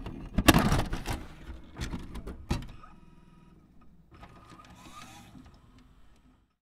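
VHS video cassette recorder's tape mechanism: several sharp clunks and clicks in the first three seconds as the deck switches from stop to play, then a faint motor whir that fades out.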